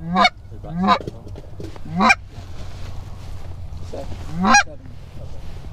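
Hand-blown Canada goose call sounding four short honks, each breaking sharply from a low note up to a high one; three come in quick succession and the fourth follows after a pause of about two seconds. The hunters are calling to Canada geese flying in toward the decoys.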